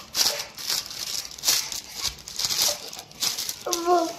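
Wooden rolling pin rolling shortbread dough on a sheet of baking paper: repeated rustling, crinkling strokes as the paper shifts under the pin. Near the end, two short steady-pitched calls.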